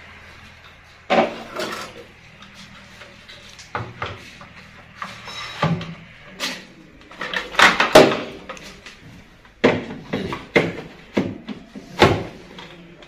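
Irregular knocks, taps and rattles of plastic refrigerator parts being handled while an emptied fridge is wiped out, about a dozen sharp strikes with the loudest about eight seconds in.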